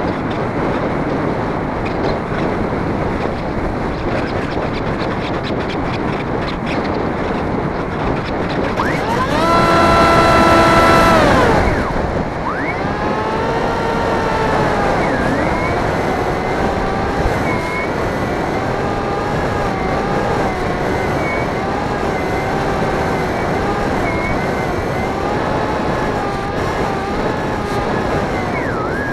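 RC plane's propeller motor whining over steady wind rush. The whine jumps up in pitch and loudness about nine seconds in and holds for a few seconds, then drops back and wavers up and down as the throttle changes.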